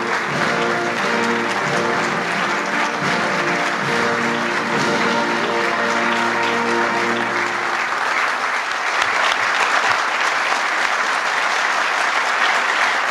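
Audience applauding with steady clapping. Background music with held notes plays over it and stops about eight seconds in, after which the applause carries on alone, a little louder.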